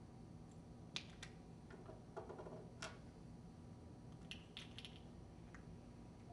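A handful of faint, sharp clicks and light rustling from small plastic parts being handled: the clear plastic sample probe handle of a gas detector being taken apart to change its filters.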